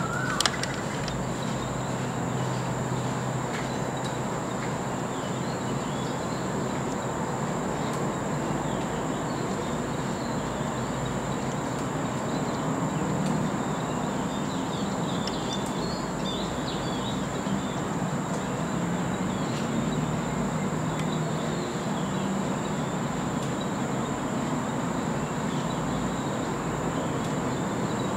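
Steady outdoor background noise, an even low hum and hiss, with a few faint high chirps about halfway through.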